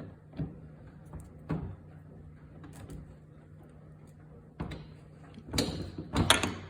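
Metal tools knocking and clanking against the primary drive as the front primary nut is tightened: a few separate knocks, then a louder clatter near the end. A faint steady low hum runs underneath.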